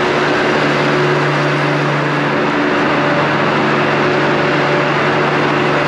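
Mondial Turismo scooter's small single-cylinder engine, bored out to 80cc, running steadily at cruising speed, under a steady rush of wind and road noise.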